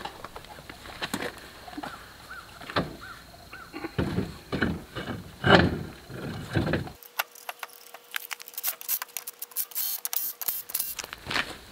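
A large knobby tire and wheel being handled and fitted onto a Polaris Ranger's hub: irregular knocks and thumps of the tire and wheel against the hub, the loudest about halfway through, with light metal clicks in between.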